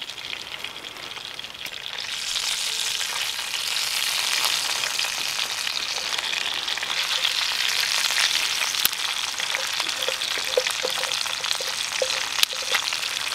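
Food sizzling in a frying pan over a camp stove. The sizzle grows louder about two seconds in and holds steady, with a few sharp pops and crackles.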